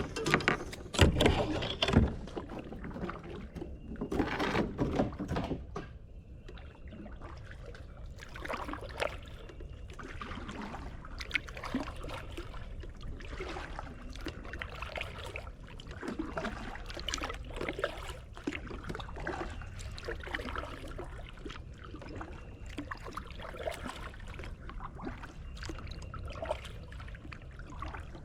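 Paddling a Moken 12.5 V2 kayak: the paddle dips and splashes in the water in an even rhythm of about one stroke a second. A few louder knocks and splashes come in the first five seconds.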